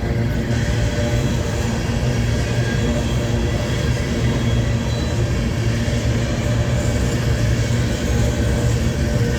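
Empty BNSF freight train rolling past: a steady low rumble with continuous wheel-on-rail noise that grows fuller about half a second in.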